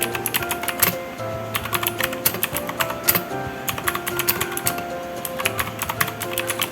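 Typing on a mechanical keyboard fitted with ABS OEM-profile keycaps: quick runs of key clacks, with a pause of about two seconds in the middle, over background music.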